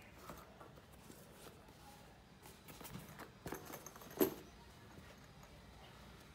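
Faint handling sounds of a canvas belt bag being turned over by hand: soft rustling and light clicks, with a sharper click about four seconds in.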